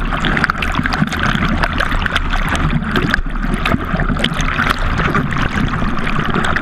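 Lake water rushing and splashing over a GoPro Hero 3 in its waterproof housing, held at the waterline as a subwing is towed through the water, with many small spray crackles and a low steady rumble underneath.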